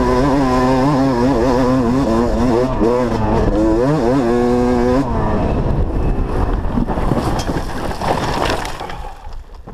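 Dirt bike engine revving up and down as the throttle is worked on the trail. About five seconds in the engine note drops out, leaving wind and tyre rumble that fades near the end as the bike slows.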